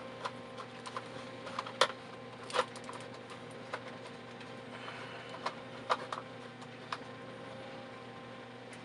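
Irregular light clicks and taps of plastic parts being handled, with a few louder clicks about 2, 2.5 and 6 seconds in, over a faint steady hum.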